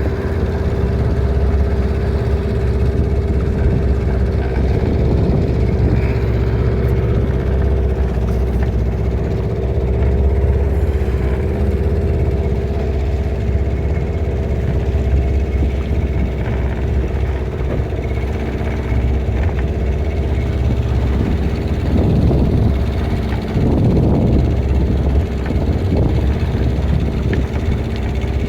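Boat motor running at a steady speed, a continuous drone with a low rumble and a steady hum.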